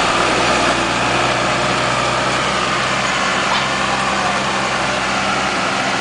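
A vehicle engine idling with a steady low hum, under a loud continuous rush of floodwater and rain.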